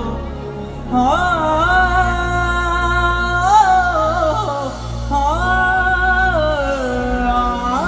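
Male vocalist singing long, held, wavering notes through a PA sound system, over a steady low bass backing.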